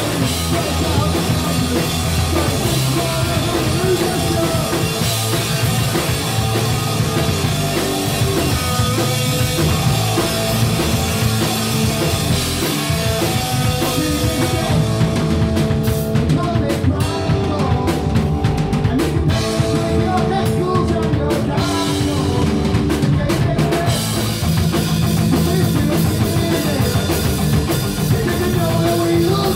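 Live punk rock band playing loud: distorted electric guitar, bass guitar and drum kit, with a male singer singing into the microphone.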